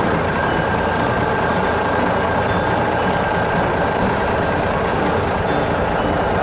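Heavy vehicle engine running steadily: a continuous, even mechanical noise with a few held tones in it.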